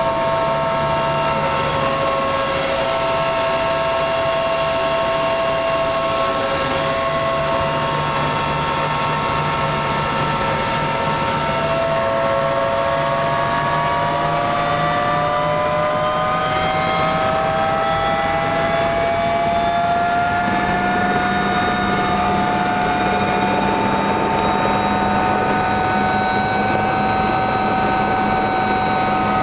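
Helicopter engine and rotor noise heard inside the cabin during takeoff: a steady loud drone with a high whine that rises in pitch about halfway through, then holds steady.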